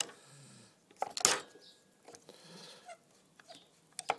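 Workpiece clamp being fitted and tightened on a mitre saw: a click at the start, a brief loud scraping noise about a second in, and two sharp clicks near the end.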